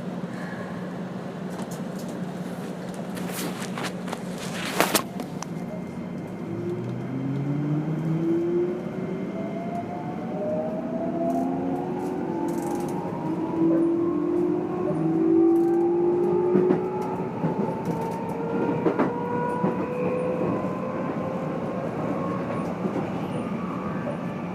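Keikyu New 1000 series (set 1449) heard aboard the motor car: the Toyo Denki IGBT VVVF inverter and MB-5121-A traction motors whine in several tones that climb steadily in pitch as the train accelerates, over a steady low hum. A couple of sharp clicks come just before the whine starts. The motor noise is unusually loud, the 'explosive' sound this set is known for among 4-car stainless sets for carrying MB-5121-A motors.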